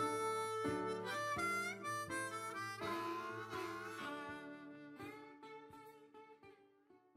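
Background music: a harmonica melody over a plucked acoustic guitar, fading out to silence near the end.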